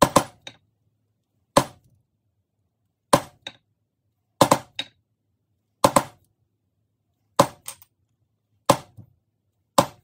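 A maul striking a steel border stamp tool into leather: eight sharp hits about one and a half seconds apart, most followed by a lighter second tap.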